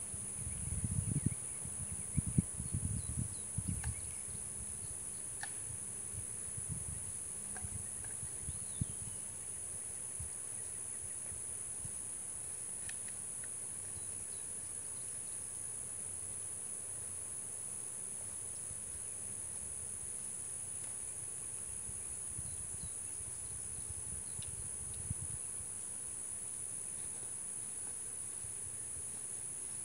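Steady high-pitched chorus of insects such as crickets, an unbroken trill throughout, with a few faint short chirps. Low rumbling thumps in the first few seconds.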